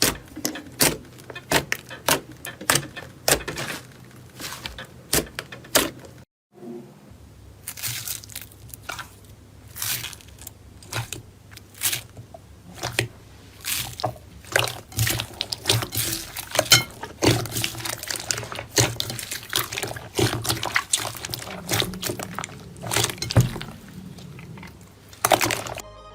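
Slime being squeezed and pressed by hand, giving a dense run of sharp wet clicks and pops over a faint low hum, with a brief silence about six seconds in.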